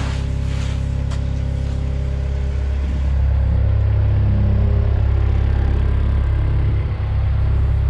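Diesel engine of a compact wheel loader running steadily, growing louder about three seconds in.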